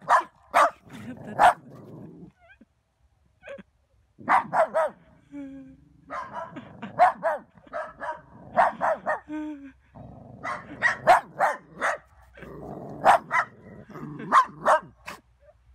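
Two small dogs, a Yorkie-poodle and a Maltese, barking defensively at a snowman in quick volleys of sharp barks, with a short lull about three seconds in.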